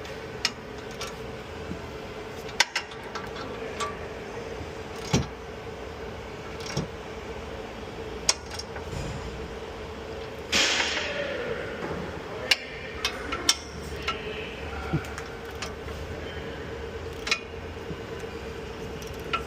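Scattered metallic taps, knocks and clinks of tools against metal, over a steady hum. About ten seconds in there is a short hiss that fades over about a second.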